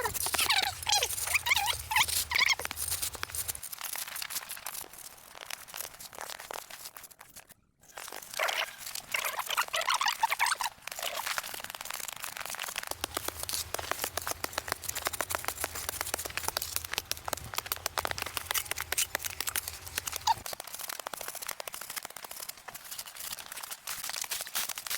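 Continuous crunching and rustling made of dense small clicks, with short bird-like chirps in the first few seconds and again about nine seconds in.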